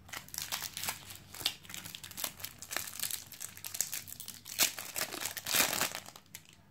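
Foil wrapper of a Panini Adrenalyn XL trading-card pack crinkling as it is picked up and torn open by hand, in a dense run of crackles with the loudest rips past the middle.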